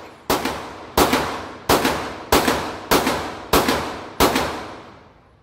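Seven gunshots fired at a steady pace, about two-thirds of a second apart, each reverberating off the walls of an indoor shooting range and dying away. The firing stops about a second before the end.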